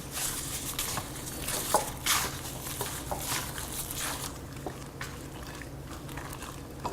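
Chunks of boneless chicken coated in flour and marinade being mixed with beaten egg in a bowl: soft, irregular wet squelching with a few light clicks.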